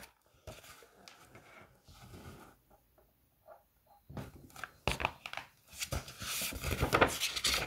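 Pages of a large hardback picture book being handled and turned: a few soft knocks and paper flicks about halfway through, then a longer rustle of pages turning near the end.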